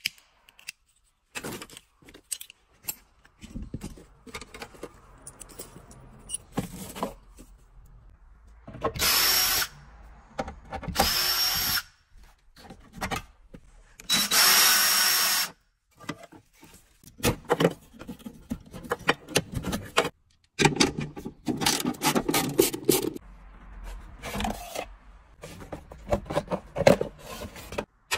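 Cordless drill-driver running in several short bursts as it drives out screws and bolts from a van's console and floor panels. Between the bursts come clicks and knocks of metal parts and tools being handled.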